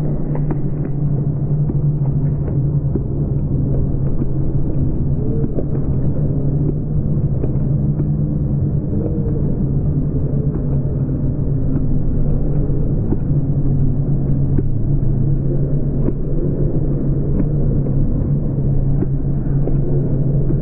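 A low, steady rumble with faint wavering tones above it: street sound of the passing bike race, slowed down along with the slow-motion footage.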